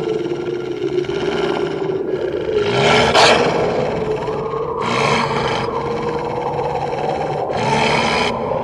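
Eerie horror sound-effect bed: a held, slowly wavering drone runs throughout, while a hiss cuts in and out several times, with the loudest swell about three seconds in.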